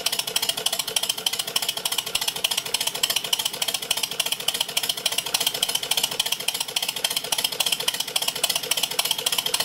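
Miniature 0-6-2 'Metre Maid' (Sweet Pea-type) steam locomotive chassis running on compressed air: rapid, even exhaust beats with the clatter of its valve gear and motion, driving the axle pump on test.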